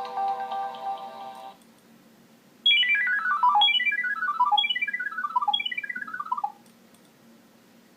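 Nokia 6230i ringtones: a polyphonic tune ends about a second and a half in, then after a short pause another tone plays four quick falling runs of electronic beeps, about one run a second.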